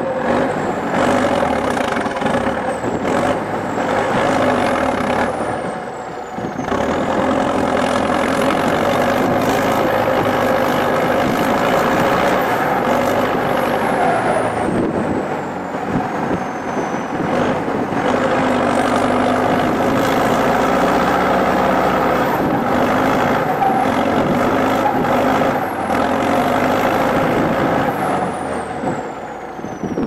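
Zetor tractor's turbocharged diesel engine working hard under load, hauling a loaded trailer through mud. The turbocharger's high whistle rises and falls several times as the revs go up and down.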